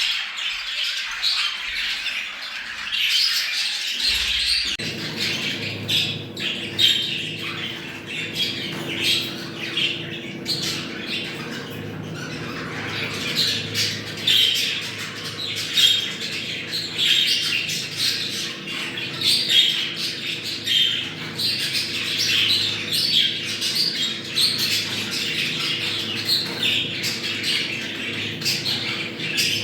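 A flock of budgerigars chattering and warbling non-stop, a dense mix of chirps, squawks and clicks. It is the courting and mating chatter of budgies in breeding condition. A faint steady low hum joins about four seconds in.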